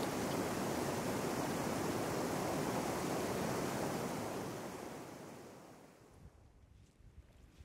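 Steady rushing noise that fades away between about four and six seconds in, leaving faint low thuds near the end.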